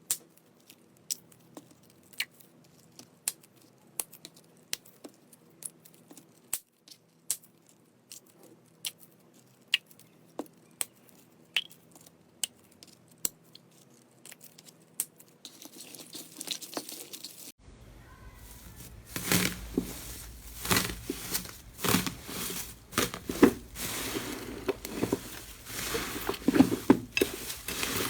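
Slime being handled. First comes a series of sharp pops or clicks, about one or two a second. Then, after an abrupt change about two-thirds of the way through, a louder dense crackling and crunching.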